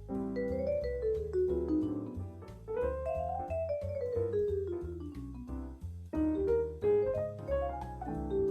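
Jazz played over a backing track: a solo melody line of quick notes that climbs and then falls over about three seconds, over a walking bass and light drums.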